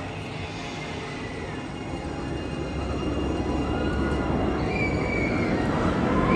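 Nemesis inverted roller coaster train running along its steel track toward the loop, a rumble that grows steadily louder as it nears, with thin high tones over it.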